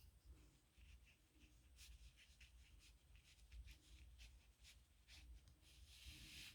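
Faint scratching of a metal nib pen on paper in many quick, short strokes, with a longer stroke near the end.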